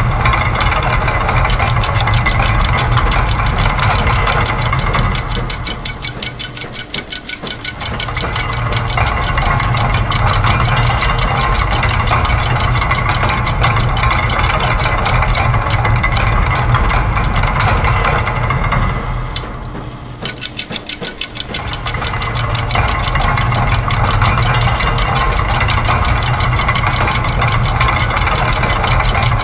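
A collage of looped factory machine sounds: a dense, rapid mechanical clatter of ticks over a steady low hum. The sound thins out twice, about six seconds in and again about twenty seconds in, then builds back to full.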